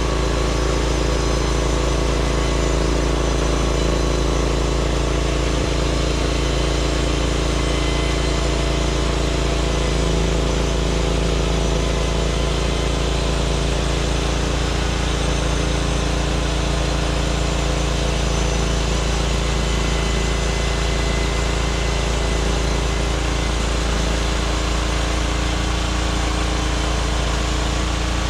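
Norwood MX34 bandsaw mill's small gas engine running steadily as the band blade cuts through a log.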